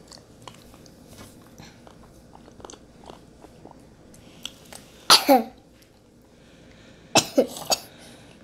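A young child coughing while being given sips of water from a mug: one cough about five seconds in, then a quick run of three coughs near the end.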